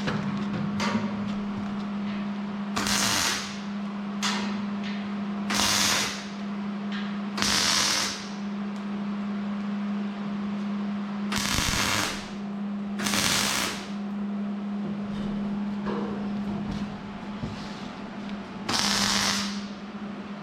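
Short bursts of MIG tack welding on a steel tube frame, six crackling welds of about a second each at irregular gaps, over a steady electrical hum.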